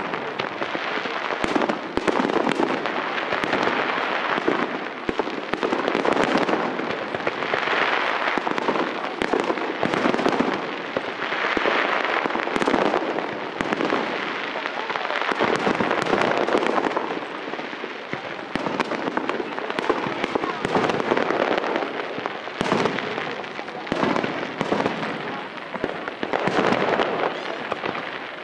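Aerial firework shells bursting in a busy display, one bang after another with no break.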